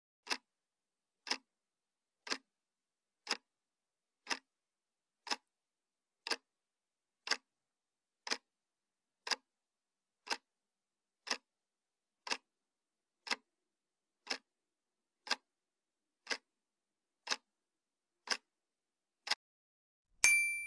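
Clock-like tick sound effect, one tick a second, twenty ticks in a row, counting down the time to answer a quiz question. Near the end a bright chime rings and fades as the answer is marked.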